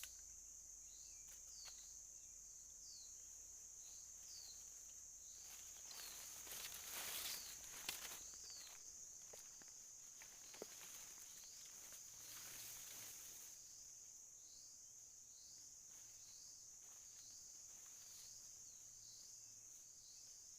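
Faint steady high-pitched insect drone, with a short falling chirp repeated a little more often than once a second. A burst of rustling with a few clicks comes about six to eight seconds in.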